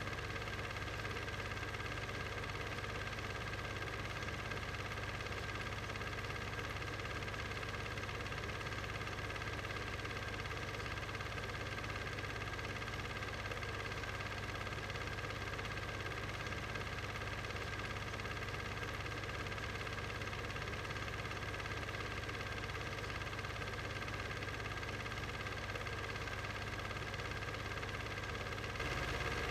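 A steady mechanical hum with several fixed whining tones over it, unchanging throughout and a little louder near the end.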